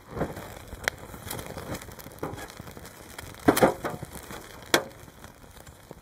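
Dry twigs and kindling crackling and snapping at a newly lit campfire. Irregular sharp snaps, the loudest a cluster about three and a half seconds in and another near five seconds.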